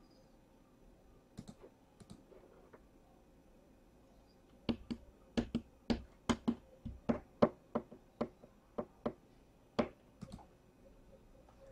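A few faint clicks, then an irregular run of about twenty sharp clicks and taps over some five seconds, ending with a last loud click just before the end.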